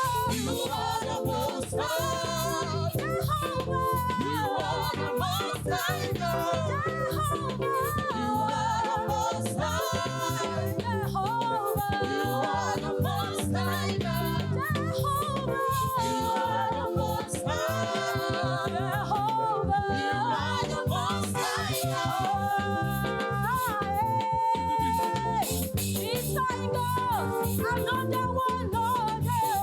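Church choir singing gospel praise music over instrumental accompaniment with a steady beat.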